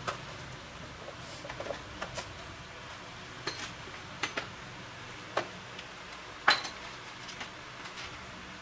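Scattered light clinks and taps of small metal parts and tools being handled, about a dozen irregular strikes, the loudest about six and a half seconds in, over a faint low hum.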